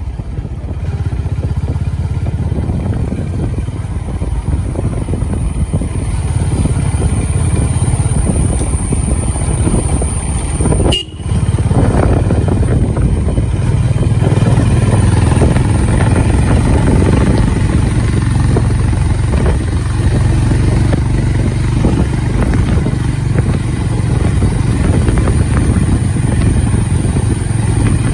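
Motorcycle engine running steadily while riding along, heard from the rider's seat. The sound cuts out briefly about eleven seconds in.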